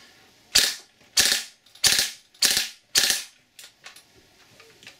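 A 3D-printed FGC-6FA gas-blowback airsoft open-bolt replica with a metal-weighted bolt firing five quick bursts about half a second apart, followed by a few faint clicks. The bolt cycles fully and locks back as it should.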